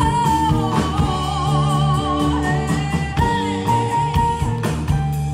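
Swing band music: a singer holding notes with vibrato over drums, bass and electric guitar, with a steady beat.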